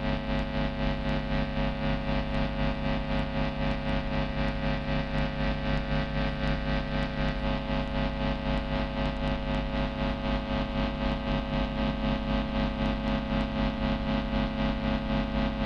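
Old-school noise music: a distorted electric guitar through a Zoom G1 multi-effects pedal makes a dense, unbroken drone of many held tones, pulsing fast and evenly in loudness.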